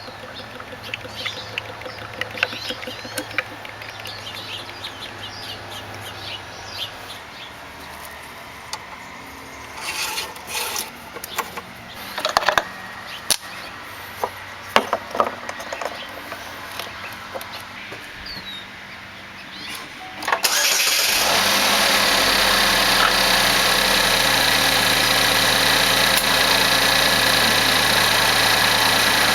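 Scattered clicks and knocks, then about 20 seconds in the 2.4-liter Ecotec four-cylinder engine starts and settles straight into a loud, steady idle, run after the fresh oil fill.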